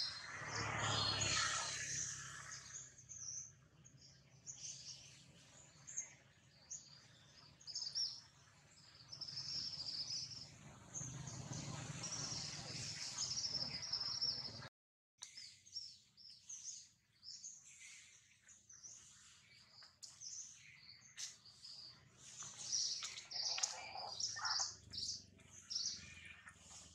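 Wild birds chirping, many short high calls scattered throughout, with a louder rush of noise in the first couple of seconds. The sound drops out for a moment about halfway.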